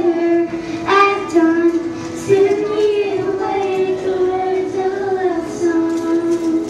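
A young girl singing solo into a microphone, holding long, slightly wavering notes.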